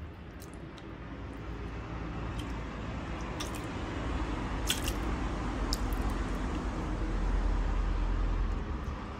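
Rubber rain boots squelching and sucking through thick wet mud as the wearer steps and shifts, with a few sharp wet clicks. The squelching grows louder toward the end, then eases.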